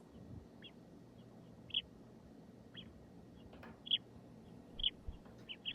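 House sparrows chirping: short, high chirps about once a second, seven or so in a row.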